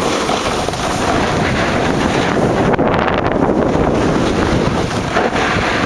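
Wind rushing over the microphone as the camera moves fast down a snowy slope, mixed with a steady scraping hiss of snow sliding underfoot.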